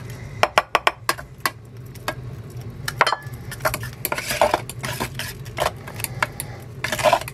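A fork clinking and scraping against a stainless steel saucepan in quick, irregular taps as it stirs flour into a thick cake batter, over a steady low hum.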